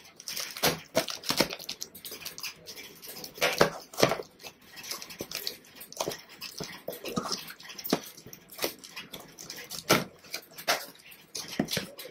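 A key scratching and tearing through packing tape on a cardboard shipping box, in irregular sharp scrapes and rips, as the cardboard flaps are worked open.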